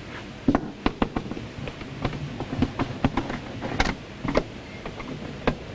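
Irregular clicks and light knocks of plastic electrical connectors and wiring being handled and unplugged on a hot tub's jet pump. The sharpest clicks come around four seconds in and near the end.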